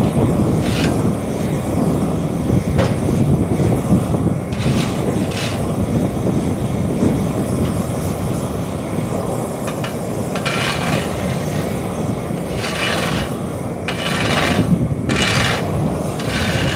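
Heavy machinery working on an asphalt speed bump, running with a steady low rumble, with several short rasps in the second half.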